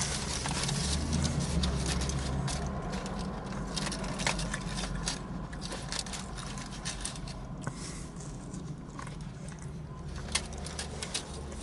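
Close-up chewing of a Philly cheesesteak sandwich: irregular small wet mouth clicks and smacks over a steady low hum.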